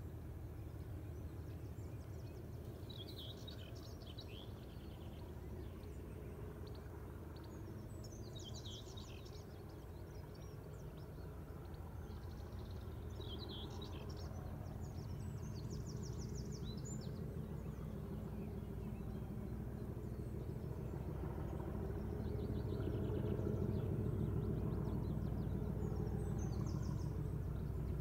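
A distant Class 97/3 locomotive's English Electric V12 diesel working under load, a low engine drone that grows steadily louder as the train approaches. Birds chirp in short phrases over the first half.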